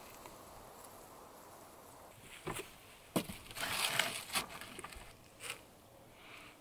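A few knocks and a rustle of clothing as a person climbs into the back of a car and sits down on a wooden platform in the cargo area; the rustle comes in the middle and is the loudest part.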